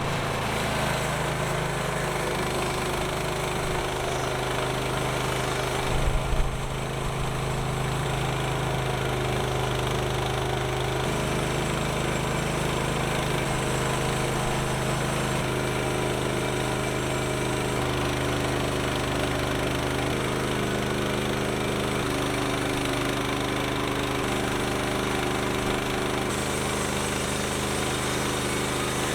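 Woodland Mills HM130Max sawmill's gas engine running steadily while milling a log, its pitch shifting slightly now and then, with a brief knock about six seconds in.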